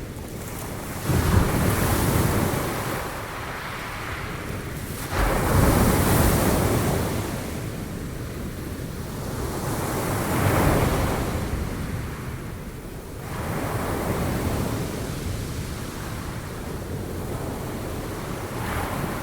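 Sea waves breaking and washing up the shore, several surges a few seconds apart, each swelling quickly and then fading as the water draws back, with some wind noise on the microphone.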